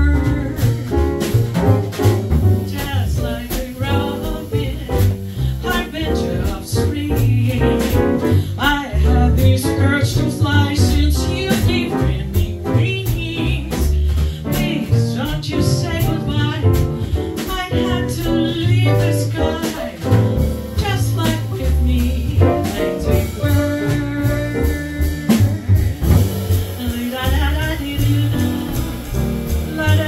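Live jazz quartet playing a swinging standard: piano, upright double bass and drum kit with cymbals, and a woman's wordless vocal line over them.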